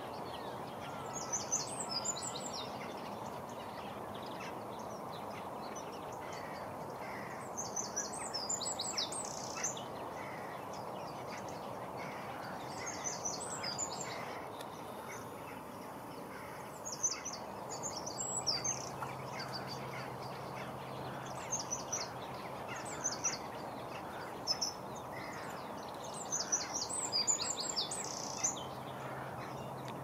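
Small songbirds singing, in quick bursts of high, rapid chirping notes that come every few seconds, over a steady background noise.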